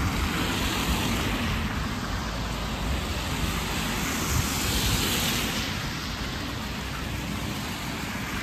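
Car tyres hissing on a wet, slushy road as traffic passes, one car swelling and fading about four to five seconds in, over a steady wet hiss and a low rumble.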